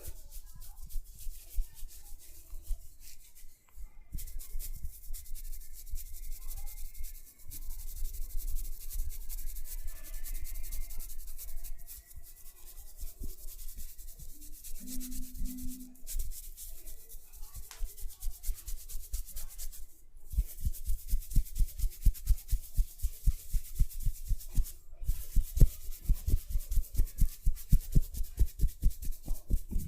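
Hands rubbing over hair and scalp during a head massage. About two-thirds of the way in, a fast run of soft patting thumps begins, about three or four a second.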